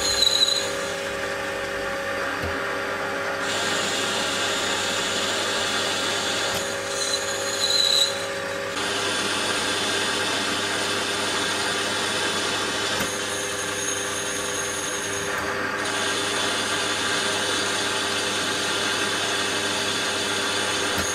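Metal lathe running while a boring bar cuts the inside of an aluminium ring: a steady machine whine with a hiss of cutting noise, and two brief high squeals, near the start and about eight seconds in.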